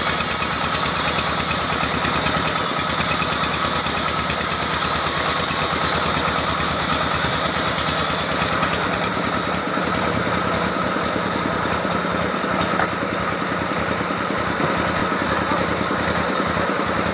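A saw's engine running steadily while cutting timber. About halfway through, the highest hiss drops away while the engine keeps running.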